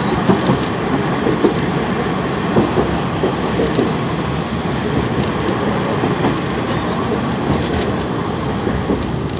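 Running noise heard inside a KiHa 58 diesel railcar travelling along the line: a steady rumble from the car and its wheels, with occasional clacks as the wheels cross rail joints.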